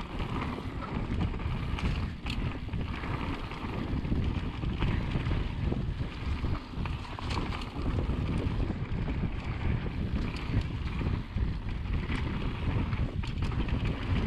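Mountain bike rolling fast down a dirt forest trail. Wind buffets the microphone over a steady rumble of tyres on the ground, with a few sharp clicks and rattles from the bike over bumps.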